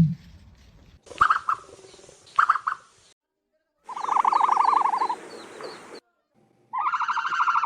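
Bird calls in separate short clips: two brief calls, then a longer rapidly pulsing call, and another pulsing call starting near the end.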